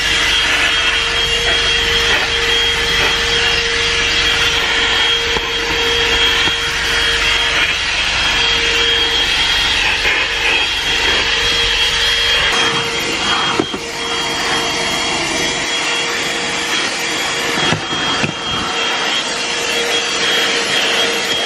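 Handheld car vacuum cleaner, powered from the car's cigarette-lighter socket, running steadily with a motor hum and a thin high whine as its nozzle is worked over the seat and floor mat. A couple of brief knocks come in the second half.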